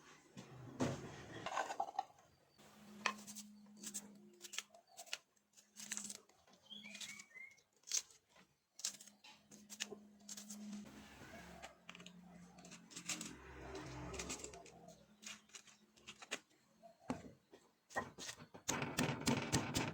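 Kitchen utensils and dishes being handled: scattered clicks, taps and clatter, with a low steady hum through the first half and a denser rubbing clatter near the end.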